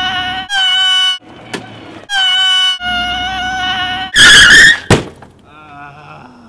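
A man screaming in long, high held screams with short breaks between them. About four seconds in comes a very loud harsh burst of noise, then a sharp thunk, an impact sound.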